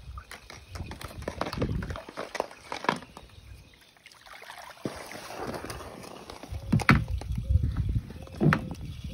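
Pool skimmer net sweeping through the water, sloshing and splashing as it scoops up floating plastic eggs and balls, with a few sharp knocks as the hollow plastic toys bump together and against the net's frame.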